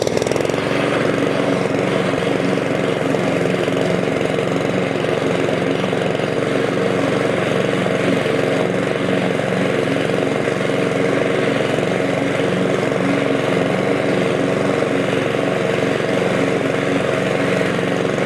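Cobra 19-inch petrol rotary lawn mower running steadily at working speed while cutting grass, set up for side discharge.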